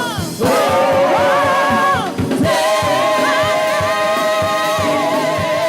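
Gospel praise team and choir singing long held notes in two phrases, over a steady low beat.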